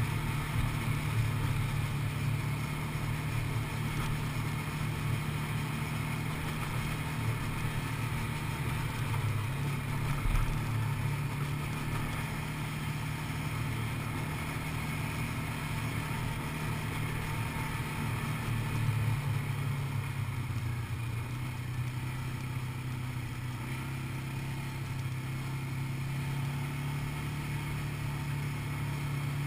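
Quad bike (ATV) engine running steadily while riding a dirt track, heard close up from the bike itself. Its note shifts a little partway through, and there is a brief low thump about ten seconds in.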